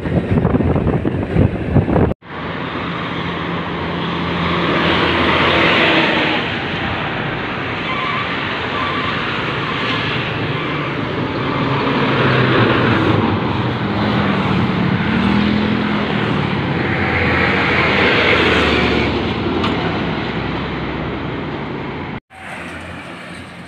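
Heavy diesel truck engine running close by with road and tyre noise, swelling and fading as trucks pass. It opens with wind buffeting on the microphone, and the sound breaks off abruptly twice.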